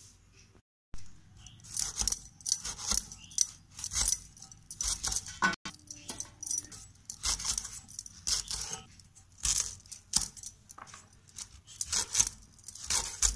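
Pointed gourd being sliced into rounds against a metal blade: crisp cutting strokes about twice a second, with the slices dropping onto a steel plate in small metallic clinks. It starts about a second in.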